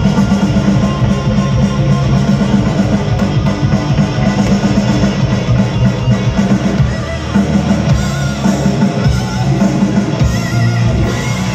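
Hard rock band playing live through the PA: distorted electric guitars, bass guitar and a drum kit, heard from the audience.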